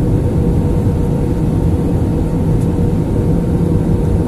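Steady cabin noise of an Airbus A330 airliner on low approach to land: the jet engines and the rush of air heard from inside the cabin, with a faint steady whine.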